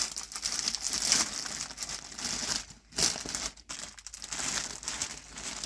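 A kilt's packaging being handled and pulled open: irregular crinkling and rustling, with two short pauses a little past halfway.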